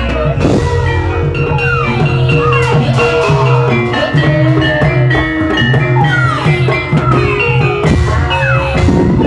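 Loud Javanese gamelan-style dance music with drumming, played through a large loudspeaker stack as accompaniment to an ebeg hobby-horse dance: steady struck notes over a regular drum beat, with repeated falling sliding tones.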